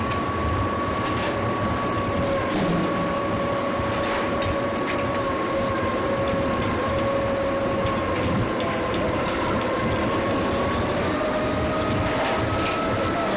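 Steady mechanical running noise with a droning hum that drifts slowly in pitch, and a few faint clicks.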